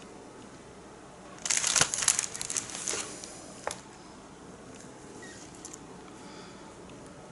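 A burst of crinkling and rustling, like crinkly material being handled, lasting about a second and a half, followed by one sharp click.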